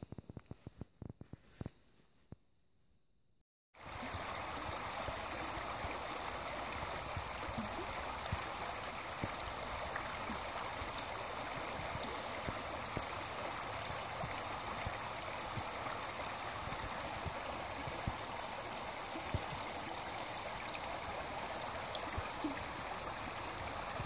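A shallow river flowing over stones and gravel: a steady, even rushing of water that starts abruptly about four seconds in. Before it, faint insects are chirping in a repeating high pulse.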